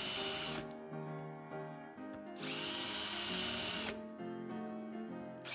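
Power drill with a twist bit boring holes into a wooden board in short runs. One run stops about half a second in, another lasts about a second and a half mid-way, and a third starts at the very end. Soft background music plays between the runs.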